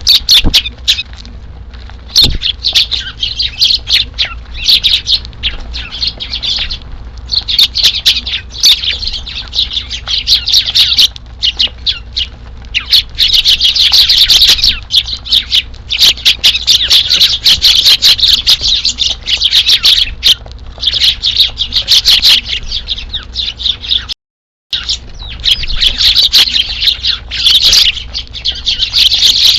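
A flock of Eurasian tree sparrows chirping and chattering, many birds calling at once in a dense, almost unbroken stream, cutting out briefly about 24 seconds in.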